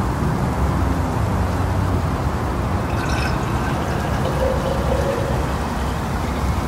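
Liquid poured from a drinking glass into a tall glass jar, beginning about three seconds in with a light glass clink, over a steady low rumble and hiss.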